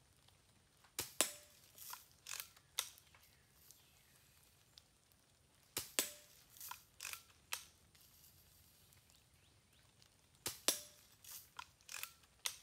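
Daisy Red Ryder lever-action spring-air BB rifle being fired and cocked, in three quick groups of sharp snaps and clicks about four to five seconds apart.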